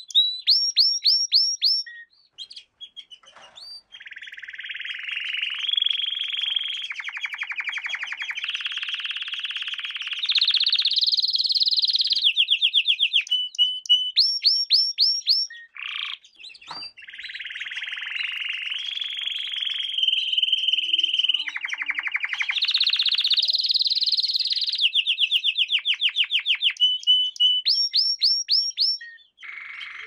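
Domestic canary singing a long song of rapid trills and rolls, each a fast run of repeated notes. The song comes in two long phrases with short pauses about two seconds in and again near the middle.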